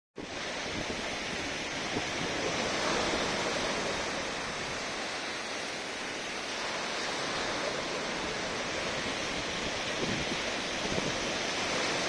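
Sea surf washing and breaking along the shore in a steady rush of choppy waves.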